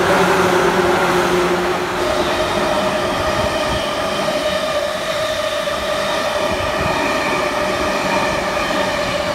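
Electric trains passing close by: a 185 series train for the first two seconds, then, after a cut, a JR E257 series limited express EMU running past. Under the running noise of the wheels there is a steady whine.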